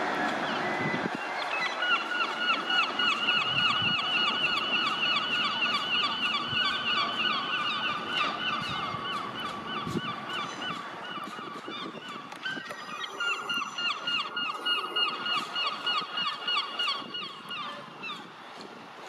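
Wheel squeal from a Class 158 diesel multiple unit taking a curve as it pulls out of the station: a high squeal with overtones, pulsing several times a second, that breaks off briefly and then fades as the train draws away. A low rumble from the train is heard at the start.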